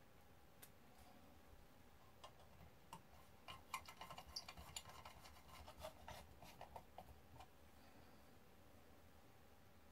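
Small screwdriver working screws into a metal enclosure: faint, quick clicks and light scrapes of metal on metal, bunched together for a few seconds in the middle.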